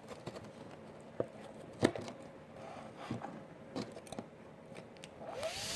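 Scattered light clicks and taps of small parts and wire connectors being handled, then near the end a tiny cooling fan from a burnt-out ESC spins up with a rising whir and hiss.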